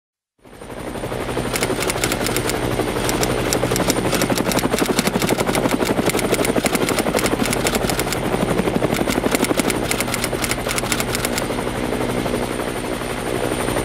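Helicopter in flight, its rotor blades chopping in a fast steady rhythm over the drone of its engines. It fades in about half a second in.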